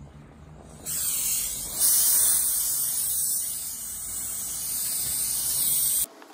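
Handheld garment steamer hissing as it blows steam onto a cotton fabric tapestry to take out fold creases. The hiss starts about a second in, gets louder shortly after, and cuts off abruptly near the end, with a steady low hum underneath.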